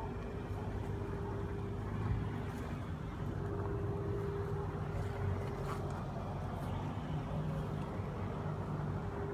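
A motor vehicle's engine running steadily at a low, even speed, with a constant hum.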